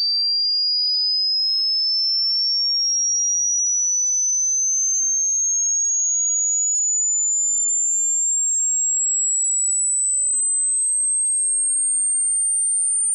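A single pure test tone of an online hearing test, sweeping slowly and steadily upward from high to very high pitch at an even level, probing the upper limit of the listener's hearing.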